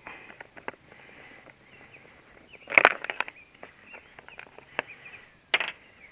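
Motorcycle parts being handled and worked on: scattered light clicks and knocks, with two louder clattering knocks about three seconds and five and a half seconds in.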